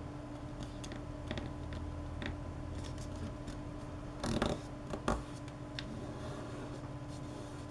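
Paper rustling and crinkling as a sheet of origami paper is folded and tucked by hand: scattered light crackles, with a louder crinkle about four and a half seconds in and a sharp one just after five seconds. A steady low hum runs underneath.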